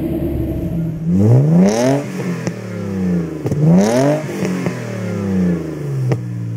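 A 2012 Ford Mustang GT's 5.0 V8 runs with a dense rumble for about the first second. Then comes a Lexus IS300's 3.0 inline-six through a Kakimoto N1 exhaust, blipped twice: each rev climbs quickly in pitch and then sinks slowly back to a steady idle.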